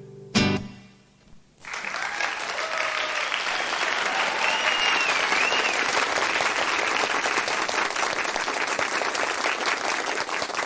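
A short final note, then a live audience starts applauding about a second and a half in. The clapping is steady and full, with a whistle and a few shouts over it.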